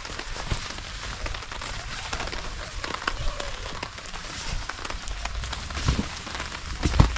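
Rain pattering steadily with many small drop ticks, and two dull thumps near the end.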